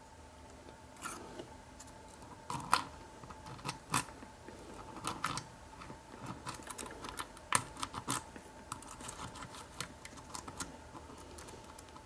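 Cheap rake pick being worked in a pin tumbler lock under light tension: irregular small metal clicks and scrapes as the pins are raked.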